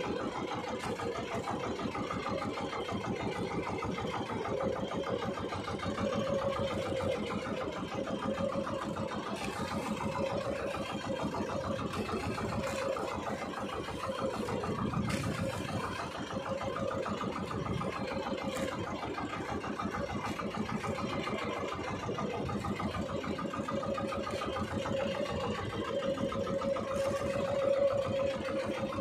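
Small fishing boat's engine running steadily, with a fast, even firing rhythm and a steady drone.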